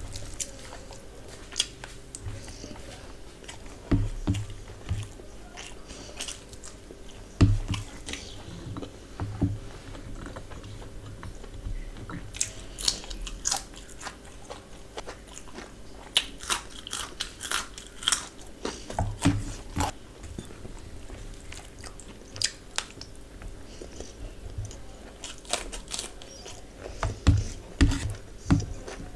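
A person chewing and biting food by mouth close to the microphone: irregular crisp crunches and clicks, as from raw carrot eaten with chicken biryani, with a few soft low thumps in between.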